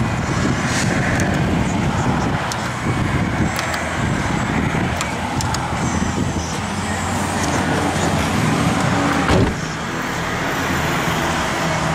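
Chevrolet Vortec 5.3L V8 idling steadily, heard from inside the truck's cab, with a few light clicks and one sharp thump about nine seconds in.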